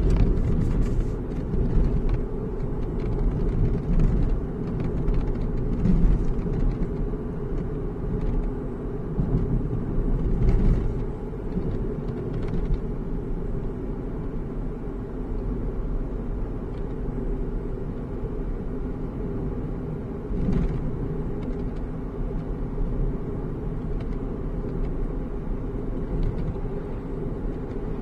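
Steady road and drivetrain rumble inside a moving Volkswagen Golf 7 GTI's cabin. Faint short ticks come from a door now and then: the door's abnormal noise.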